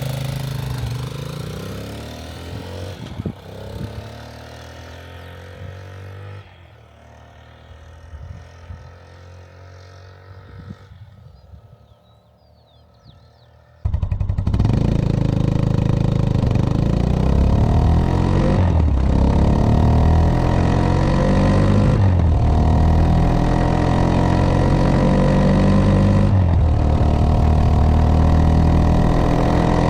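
Italika DM150 motorcycle's 150 cc single-cylinder four-stroke engine, first dropping in pitch and fading away over about twelve seconds. About fourteen seconds in it cuts abruptly to a loud, close engine climbing in revs, with a sharp drop in pitch roughly every three to four seconds as it is shifted up through the gears.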